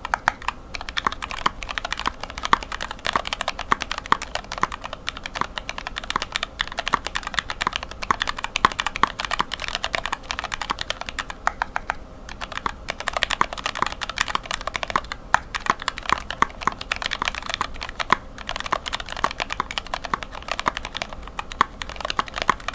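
Fast, continuous typing on a mechanical keyboard with lubed linear switches (Greetech black stems and tops in Cherry retooled housings, 72 g springs), heard close up: a dense run of keystroke clacks with brief pauses.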